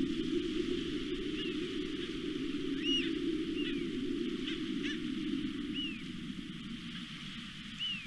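American oystercatcher (pilpilén) giving short, arched whistled calls, about seven at irregular intervals, over a steady low background rumble.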